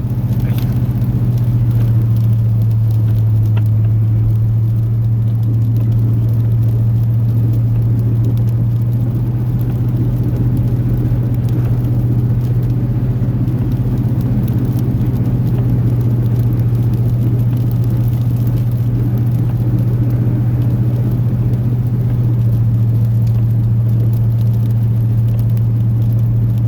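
Chevrolet truck's 8.1-litre Vortec big-block V8 running steadily under load while plowing, heard as a low drone inside the cab. Its pitch lifts slightly about two seconds in and settles a little lower toward the end. The engine's exhaust manifolds are leaking.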